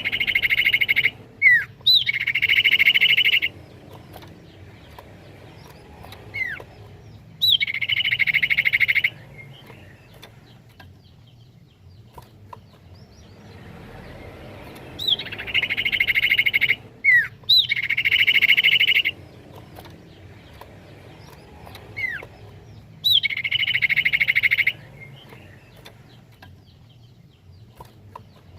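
Common iora (cipoh) song played as a lure: short down-slurred whistles each followed by a long, even trilled note, in phrases that repeat every several seconds with quiet gaps between.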